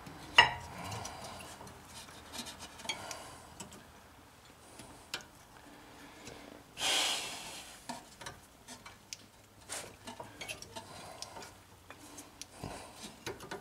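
Light metallic clicks and clinks of a brake pad and its stamped hardware clip being worked into a rear caliper bracket by hand, the pad binding against the clip. A sharp clack about half a second in, and a brief rasping noise about seven seconds in.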